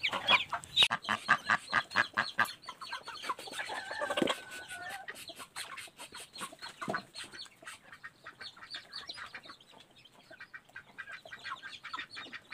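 Chickens calling: quick, repeated peeps from newly hatched chicks mixed with clucking. The calls are busiest and loudest for the first few seconds, then thin out and grow fainter.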